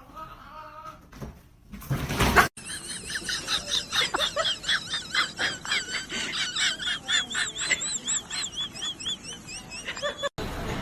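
Rapid, high-pitched animal chirping, several wavering chirps a second, that stops abruptly. A short loud burst of noise comes just before it.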